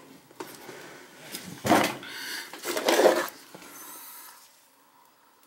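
Handling noises at a toilet: a few light knocks, then two louder rustling scrapes about two and three seconds in.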